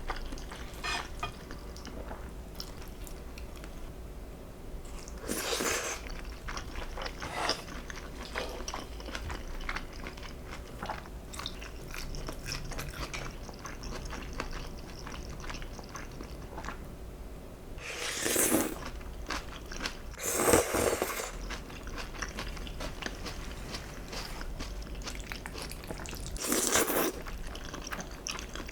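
Close-miked eating: steady chewing with small wet mouth clicks, broken by a few louder crunching bites.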